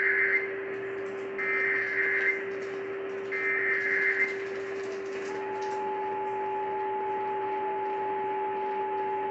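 Emergency Alert System header heard over AM radio: three short data bursts about a second apart, then, about five seconds in, the long steady attention tone. Together they announce a tornado warning. A steady low whistle and radio hiss run underneath.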